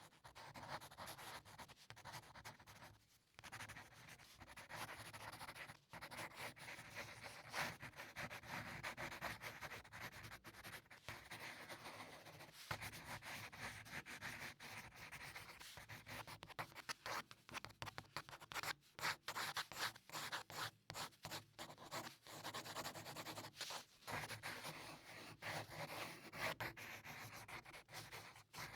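Pencil drawing on paper: continuous scratching and rubbing strokes of graphite on the sheet, with brief pauses between runs of strokes.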